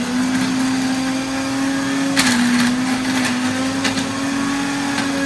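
Electric blender with a small grinder jar running, grinding a dry paste of garlic, bird's eye chilies and dried shrimp. The motor hum dips briefly about two seconds in, with a few knocks from the jar. The mix is hard to grind because there is no liquid in it.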